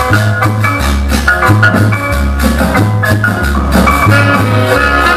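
Cumbia music played over a sonidero's sound system: a bass line rocking between two notes, a bright melodic line and steady percussion.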